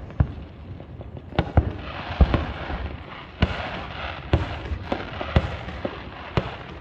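Aerial fireworks bursting in a quick series of sharp booms, about ten of them, with a crackling hiss filling the gaps through the middle few seconds.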